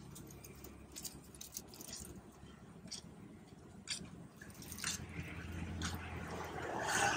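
Fried tapioca chips crackling and a thin plastic bag crinkling as the chips are scooped by hand into the bag. The sound comes as scattered short crisp rustles, the loudest near the end.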